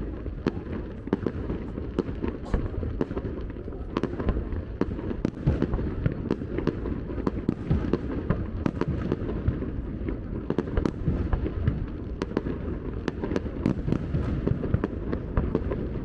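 Fireworks display: a dense, uneven run of sharp bangs and crackles, several a second, over a continuous low rumble.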